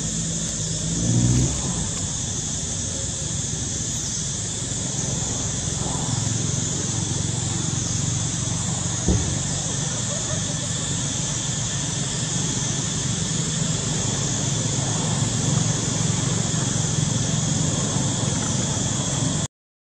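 Steady outdoor background noise: a low rumble of road traffic under a continuous high hiss, with one sharp click near the middle. The sound cuts out completely for a moment near the end.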